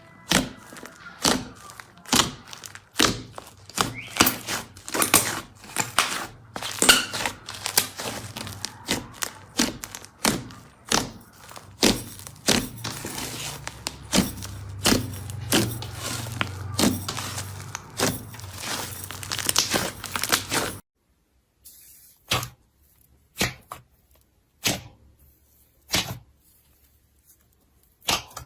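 A rapid, irregular series of sharp knocks and clicks over a low hum, cutting off abruptly about 21 seconds in; after that only a few isolated clicks.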